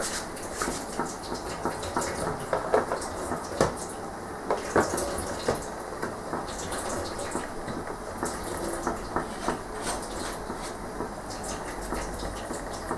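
Thin stream of moonshine distillate trickling and dripping from the still's outlet tube through a plastic funnel into a plastic bottle. Irregular clicks and knocks of plastic PET bottles being handled run through it as a full bottle is swapped for an empty one and capped.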